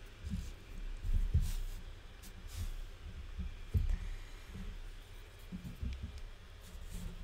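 Hands handling and turning a lump of clay on a tabletop: irregular dull low thuds and bumps, the strongest about a second and a half in and again near four seconds, with a few faint brief scrapes.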